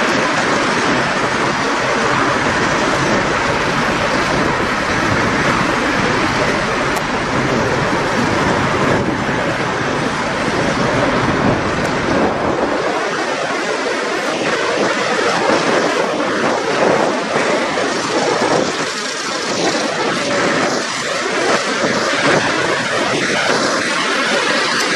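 Steady, loud outdoor noise on a truck-stop lot among parked semi trucks, a rushing hiss with a low rumble that drops away about halfway through.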